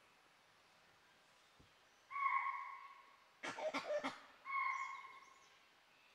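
Dhole whistling: a clear, steady whistle call lasting about a second, heard twice about two and a half seconds apart. Between the two calls comes a quick cluster of sharp clicks.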